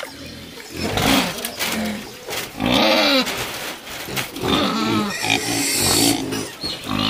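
Pigs squealing in several loud, harsh cries that rise and fall in pitch, the loudest about three seconds in.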